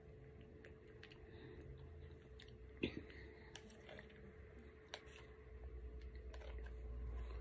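Quiet eating of yogurt: soft mouth sounds and a few clicks of a metal spoon against a small plastic yogurt cup, the sharpest about three seconds in. A low rumble builds near the end.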